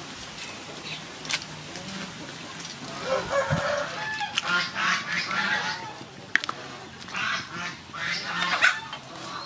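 Domestic fowl calling repeatedly, a run of short harsh calls starting about three seconds in.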